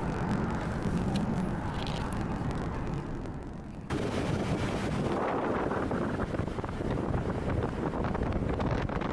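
Engine and road noise inside a moving car's cabin; about four seconds in it cuts to louder wind buffeting the microphone as the car drives, with rough crackling gusts.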